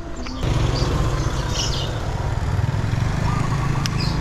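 A small engine running steadily with a low rumble that starts abruptly about half a second in, with a few short bird chirps over it.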